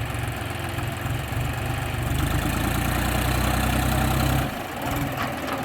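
Heavy diesel engine of a tractor or backhoe loader running steadily just after starting; its low drone falls away about four and a half seconds in.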